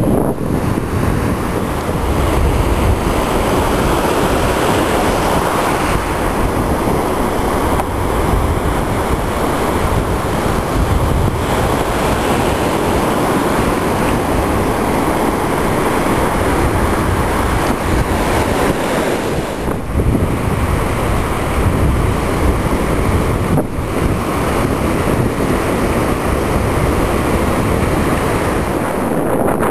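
Ocean surf breaking and washing up the beach in a continuous rush, with wind buffeting the microphone.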